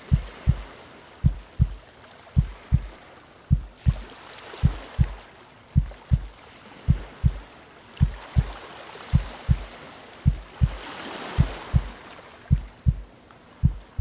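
Recorded human heartbeat, slow and steady: paired low thumps (lub-dub) about once a second. Under it, calm ocean waves wash in and out, swelling louder a few times.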